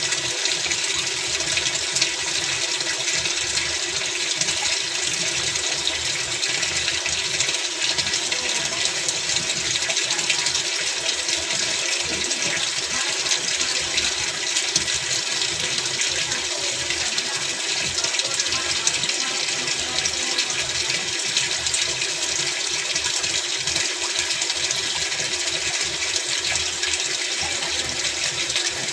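Steady rush of water in a Godrej Eon Allure Classic 7.5 kg top-loading washing machine running a test cycle on its newly replaced gearbox.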